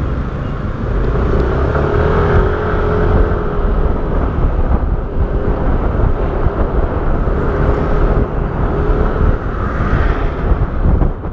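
Motor scooter ridden along a road: a steady rumble of wind and engine on the on-board microphone, with a faint whine that comes and goes.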